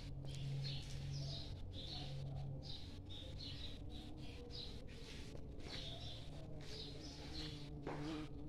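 Many small birds chirping, short high calls repeating throughout. A low steady hum runs underneath, fading about a third of the way in and returning near the end.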